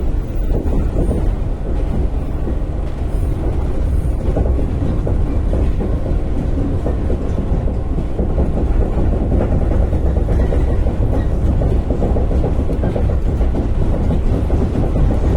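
Shinano Railway 115-series electric train running between stations, heard from inside the carriage: a steady low rumble of wheels on the rails.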